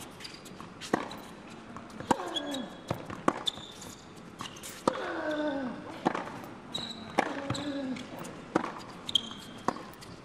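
Tennis rally: racket strokes on the ball about once a second, alternating between the two players, with loud falling grunts from a player on several shots and sneakers squeaking on the hard court.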